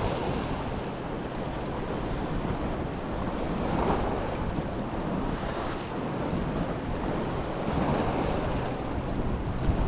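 Sea waves washing, swelling and easing every couple of seconds, with wind buffeting the microphone.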